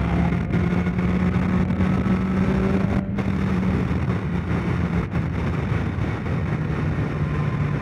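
Motorcycle engine running steadily at cruising speed over an even rush of road and wind noise. About five seconds in, its note fades briefly, then holds a little lower.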